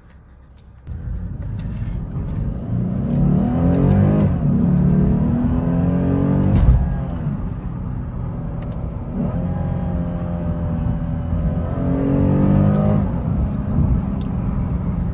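Lexus IS350's 3.5-litre V6 heard from inside the cabin, pulling hard under acceleration with its pitch climbing steadily. About six and a half seconds in, the pitch drops sharply at an upshift. The engine climbs again and then falls away a couple of seconds before the end.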